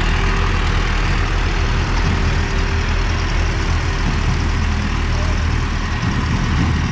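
Diesel tractor engines running steadily under throttle as several tractors drive together in a gear speed test, a continuous low drone.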